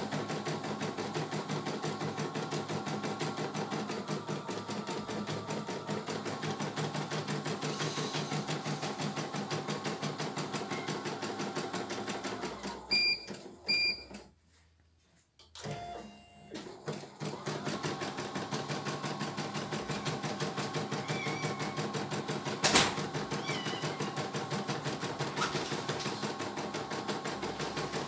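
CNY E900 computerized embroidery machine stitching a design at a rapid, even rhythm. About halfway through it stops with two short beeps, goes nearly silent for about a second, then starts up again and runs on, with one sharp click later.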